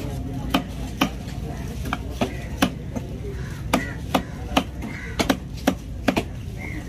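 Large fish-cutting knife chopping fish steaks into chunks on a wooden block: sharp knocks of the blade striking the wood at an uneven pace, about one or two a second, over a steady background hum.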